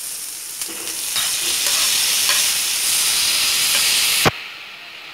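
Onions, garlic and ginger sizzling in hot oil in a metal frying pan. The sizzle grows louder about a second in as chopped tomatoes go into the oil, with a few light knocks. Near the end it drops off abruptly to a quieter sizzle.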